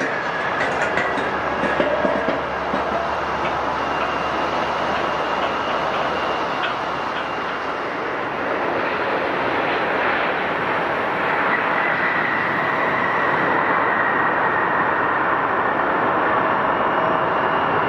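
Jet airliner engines running with a steady roar and a high whine, growing a little louder about halfway through.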